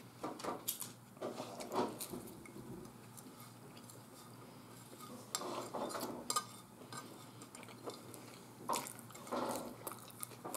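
Faint chewing mixed with soft clicks and light scrapes of fingers picking arugula off a plate, in a few short clusters.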